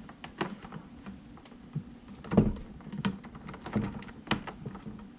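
Heavy red battery cables being handled and tucked against a metal inverter case and battery, giving irregular light clicks and taps with one louder thump about halfway through.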